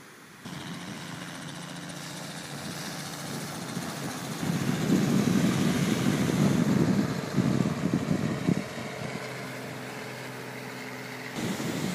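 Light helicopter flying overhead, a steady engine and rotor drone that grows louder towards the middle and then fades. It starts abruptly about half a second in and cuts off just before the end.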